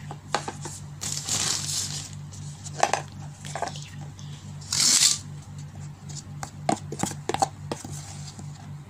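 Ingredient-handling sounds around a stainless steel mixing bowl: scattered light clicks and knocks, and two short rustling hisses, the louder one about five seconds in, over a steady pulsing low hum.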